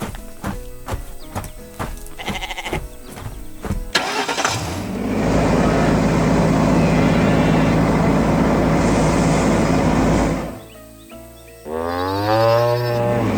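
Cartoon background music with a plucky beat gives way about four seconds in to a loud, steady vehicle engine sound effect, which stops about ten seconds in. Near the end comes a single bleat that rises in pitch.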